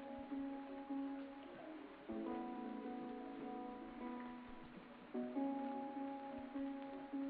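Background instrumental music: held chords that change about every three seconds.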